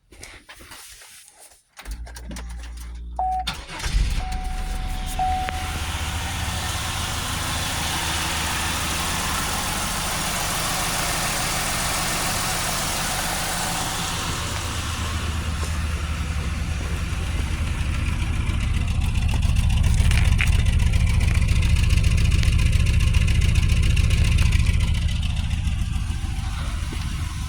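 2004 Buick LeSabre's GM 3800 V6 cranking on the starter about two seconds in and catching about two seconds later, then idling steadily, a little louder past the middle. It is misfiring, with no spark on cylinders 1 and 4.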